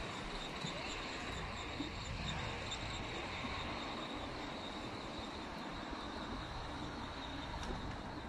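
Steady outdoor street background: wind buffeting the microphone and distant road traffic, with a faint, steady high-pitched whine.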